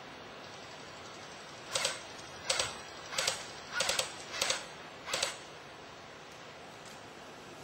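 Airsoft gun firing six short bursts, each with one or two rapid shots, about two-thirds of a second apart, over a steady outdoor hiss.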